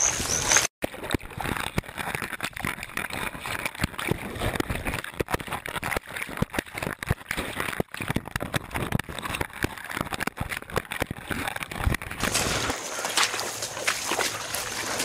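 Dense, irregular rustling and crackling of grass and brush scraping against a dog-worn camera as the dog pushes through undergrowth. There is a brief dropout about a second in.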